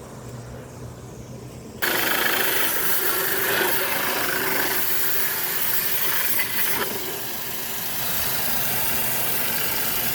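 Garden hose spray switches on suddenly about two seconds in, water hissing steadily as it is forced through the window air conditioner's condenser coil fins to rinse out the dirt. Before it, a low steady hum.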